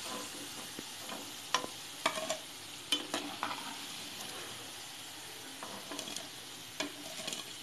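Moong dal fritters sizzling as they deep-fry in hot oil in a pan, with scattered light clicks and scrapes of a metal slotted spoon against the pan as they are lifted out.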